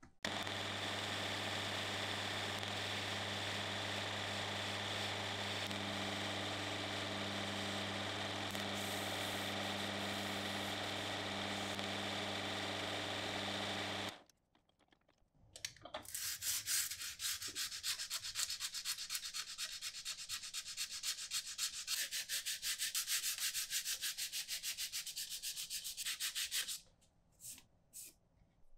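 A wood lathe motor runs steadily while turning the wrench's wooden handle, then cuts off about halfway through. After a short pause, sandpaper rasps against the wooden handle in quick, even strokes, stopping shortly before the end.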